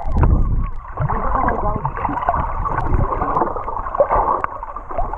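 Muffled underwater splashing and bubbling from swimmers in life vests kicking and thrashing at the surface, heard underwater through a camera housing, with a low rumble and a few sharp knocks.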